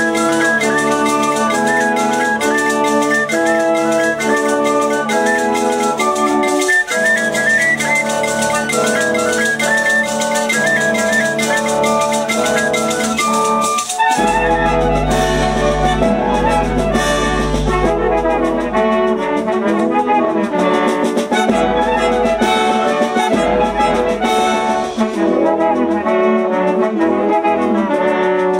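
Live wind band music with brass and woodwinds, played together with a folk soloist. The first half has a steady held note under a moving melody; about halfway through a strong low bass comes in and the full band sound thickens.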